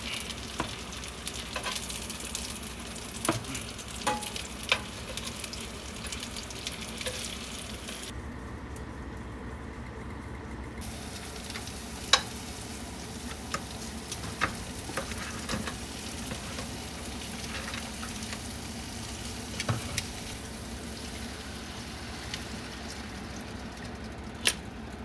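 Chicken livers sizzling as they fry in a pan, with a few sharp clicks and scrapes of a utensil against the pan as they are stirred.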